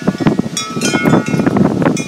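Wind chimes struck repeatedly by gusty wind, ringing with many overlapping high tones, over a loud rumble of wind on the microphone.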